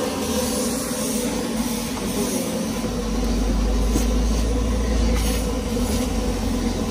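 Steady running noise of a vehicle, a constant hum with a deep low rumble that swells from about three seconds in to about six.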